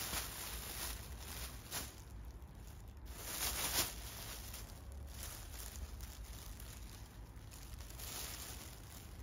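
Thin black plastic bin bag crinkling and rustling as a kitten wriggles around inside it, in irregular bursts, loudest about three and a half seconds in.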